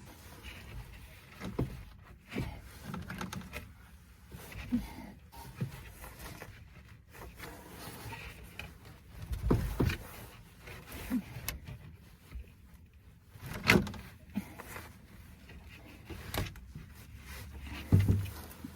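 Irregular knocks, clunks and scraping from hand work, with no steady rhythm; the loudest clunks come about nine and a half, fourteen and eighteen seconds in.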